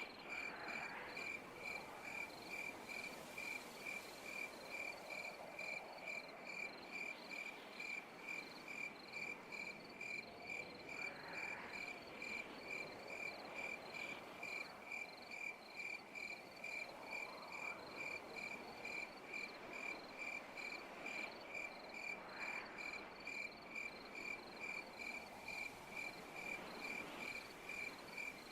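Night insects chirping: one high-pitched chirp repeating evenly at about two a second, over a faint hiss of other insects. Fainter calls that rise in pitch come every few seconds.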